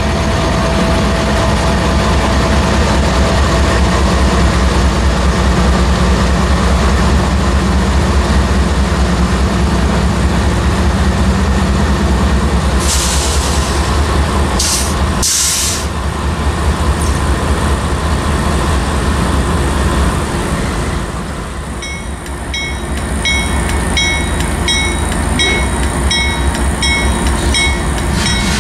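A consist of Norfolk Southern GE diesel locomotives, an AC44C6M and C44-9Ws, rumbling steadily past. Three short hissy bursts come a little past halfway. In the last several seconds the locomotive bell rings steadily, a little more than once a second.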